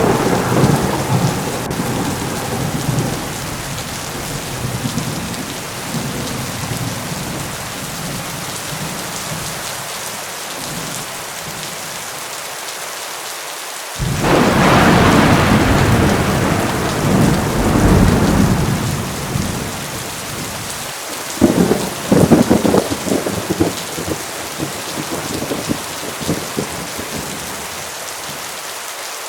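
Heavy thunderstorm: steady pouring rain with thunder. A rumble fades away at the start. About halfway through a loud thunderclap breaks in suddenly and rolls on for several seconds, and a few seconds later comes a burst of sharper cracks.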